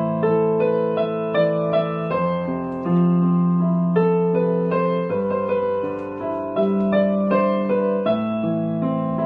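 Electronic keyboard played with a piano sound: a slow melody of single notes over held low notes and chords.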